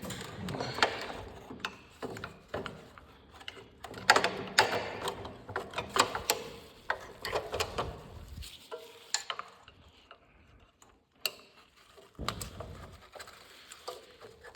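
Irregular metal clicks, knocks and rattles of snowblower parts being handled while the drive cable end is worked back into its hole, with a quiet pause in the middle.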